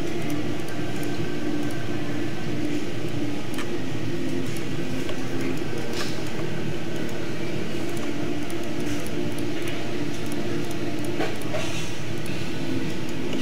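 Steady low hum and hiss of room noise picked up by the microphone, with a few faint mouse clicks.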